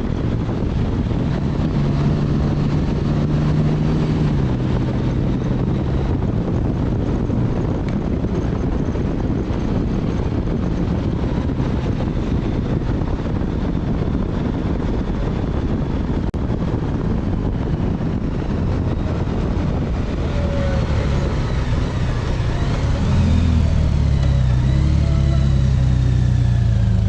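Motorcycle engine running on the road under heavy wind and road rush. About three-quarters of the way through, the engine note rises and grows louder as it accelerates.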